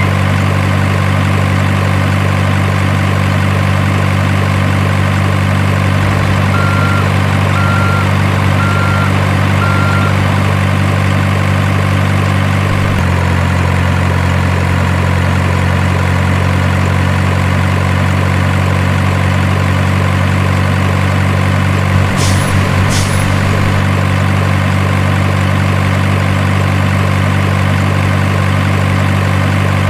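Simulated heavy diesel engine sound from an RC truck's sound module, running steadily and changing note slightly about 13 seconds in. Four short beeps sound about a quarter of the way through, and two short hisses come about three quarters in.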